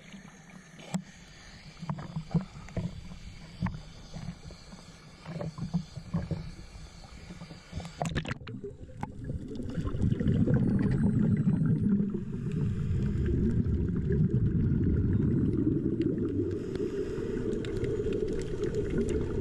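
Small waves slapping and sloshing against a camera housing at the sea surface, in uneven splashes. About eight seconds in the camera goes under and the sound turns to a loud, steady, muffled low underwater rumble.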